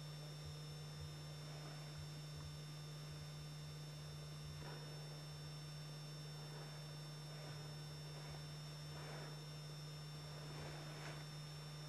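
Steady low electrical hum with two faint, high, steady whines over it, under a few faint soft rustles that come every second or two.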